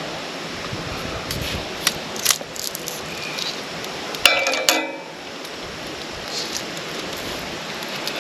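A few sharp metallic clicks and one brief ringing metal clink about four seconds in, from wire and metal stripping gear, over steady mechanical running noise.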